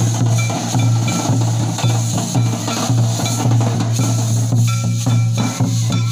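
Traditional drums beaten in a steady, quick rhythm to accompany a Santali group dance, loud and dense on the microphone.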